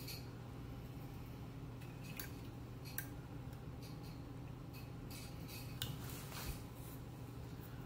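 Faint handling of thin telephone wires and connectors as they are twisted together: scattered small clicks and a brief rustle, over a low steady hum.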